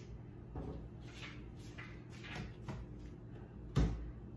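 Faint handling sounds and light taps in a kitchen, then one sharp knock near the end, like a hard object set down or shut against the counter or cabinetry.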